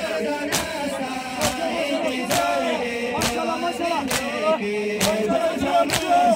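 Men's voices chanting a noha together, with sharp, in-time slaps of chest-beating (matam) about once a second.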